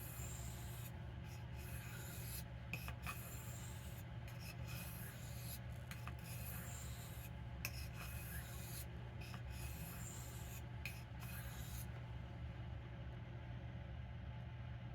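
Jackknife blade being stroked across a soft Arkansas whetstone: a faint, fine scraping hiss, about a stroke a second, that stops about twelve seconds in.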